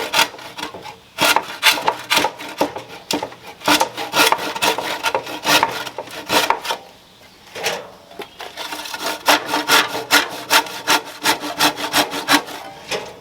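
Handsaw cutting through a pine board in quick back-and-forth strokes, about two a second, pausing briefly twice.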